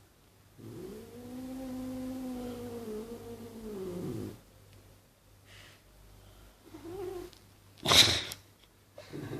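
Maine Coon cat making one long, low, drawn-out pitched sound of nearly four seconds, the heavy breathing the video is about. A shorter sound follows a few seconds later, then a loud, sharp burst of noise near the end.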